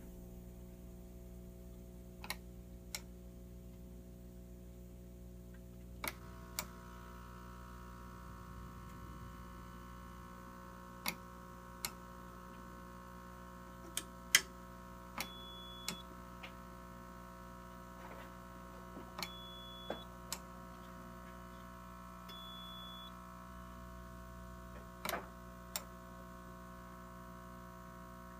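Electro Blend electrolysis/thermolysis hair-removal unit humming steadily while its front-panel toggle switches are flicked, giving sharp clicks throughout; the hum grows fuller about six seconds in, after a switch click. Three short high beeps sound in the second half.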